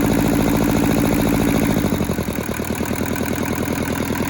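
Small Toyosha diesel engine of a Hinomoto compact tractor running. It runs at a higher speed for the first two seconds, then drops to a slower idle with distinct firing pulses as the throttle is worked by hand.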